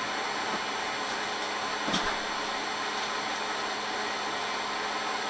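Steady whirring of a hovering quadcopter's motors and propellers, with one light knock about two seconds in.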